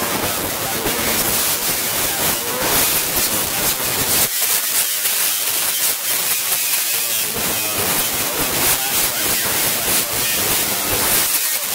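Loud, steady static-like hiss with a crackly texture.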